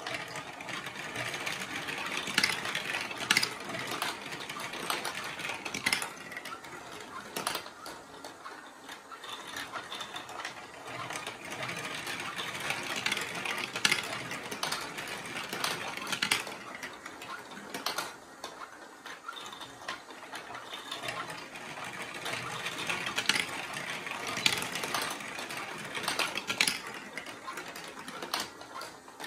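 Marbles rolling and clattering through a plastic building-block marble run: a continuous rattle that swells and fades, with frequent sharp clicks as balls drop onto and knock along the tracks.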